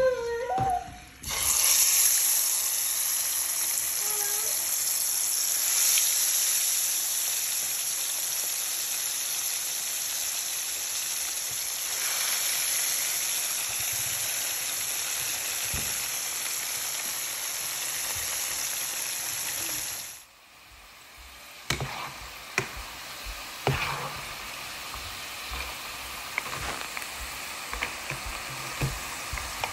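Hot oil sizzling in a pan with a loud, steady hiss that cuts off suddenly about twenty seconds in. After that, potato chips frying in oil, with a quieter hiss and scattered sharp crackles and clicks from a metal ladle against the pot.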